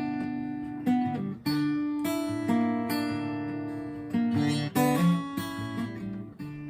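Acoustic guitar strumming chords, each chord struck and left to ring before the next, in the song's instrumental ending.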